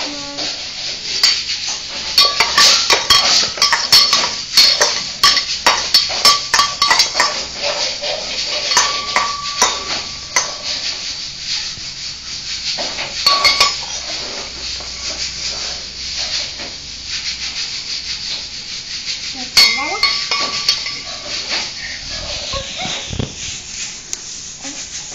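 Small stainless steel pots, bowls and a spoon clinking and clattering as they are handled and knocked together. A quick run of taps comes in the first several seconds, then single clinks now and then, and some strikes ring briefly.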